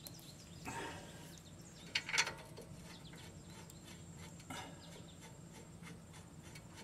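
Light handling sounds of a steel brake caliper bracket bolt, coated in anti-seize, being picked up and threaded by hand into the caliper bracket: three short clinks and scrapes, the loudest about two seconds in, over a low steady hum.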